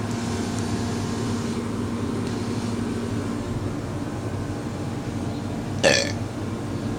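A single short burp about six seconds in, over a steady low background hum.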